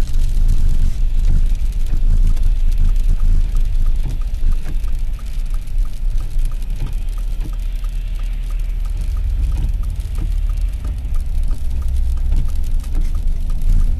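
Car driving on snowy, slushy roads, heard from inside the cabin as a steady low road and engine rumble. For several seconds in the middle there is a light, regular ticking of about three ticks a second, which fits the turn-signal indicator as the car turns in.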